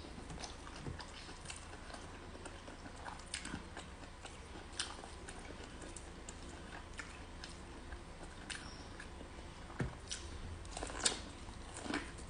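Close-up eating sounds of a person chewing and biting corn on the cob of white and purple kernels: irregular soft clicks and crunches of kernels in the mouth, with a few louder crunches near the end as the cob is bitten again.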